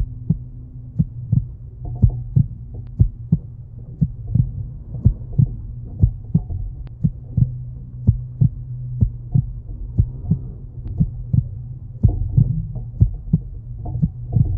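Fishing boat moving at trolling speed: a steady low engine hum under dull, uneven knocks about two or three times a second.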